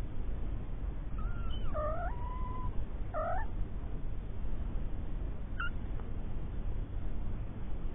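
Three-week-old kittens mewing: a few short, high calls in the first half, and one brief call a little past the middle, over a steady low rumble.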